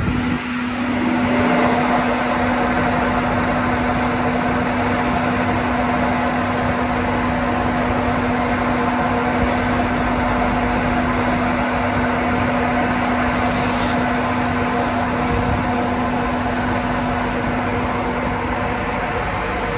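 LNER Class 91 electric locomotive standing with its onboard equipment running: a loud steady hum with a held tone that slides up into place at the start and stops near the end. A brief high hiss comes about two-thirds of the way through.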